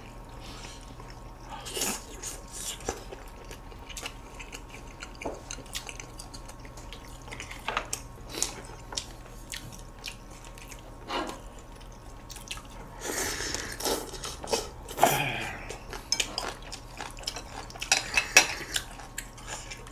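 Eating sounds at a meal of chicken soup: scattered light clicks of chopsticks, tongs and a ladle against bowls and the pot, with a few short bursts of slurping broth and chewing, the loudest about two-thirds in and near the end.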